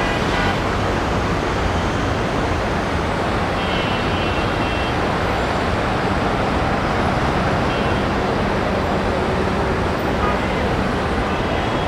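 Steady traffic noise from congested streets full of slow-moving cars and buses, heard from high above. A faint high tone is heard briefly about four seconds in.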